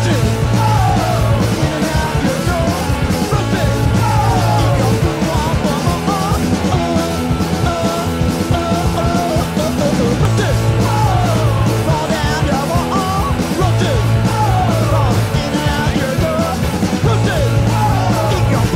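Punk rock band playing live: electric guitar, bass guitar and drums, loud and steady, with pitch slides falling again and again.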